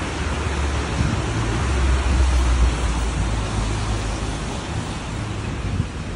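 Street traffic: a steady hiss with a low rumble that swells about two seconds in and then eases off.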